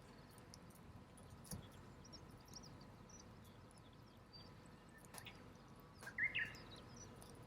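Small campfire of damp firewood crackling quietly, with scattered light pops and ticks. A brief, louder chirp comes about six seconds in.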